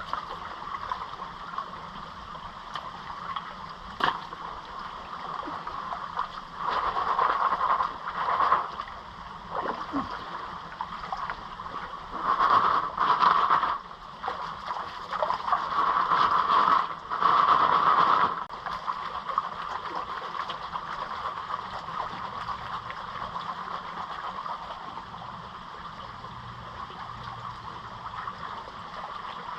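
Gold pan of gravel being swirled and washed in a running creek: water sloshing and splashing in several surges of a second or two in the middle, over the steady rush of the stream.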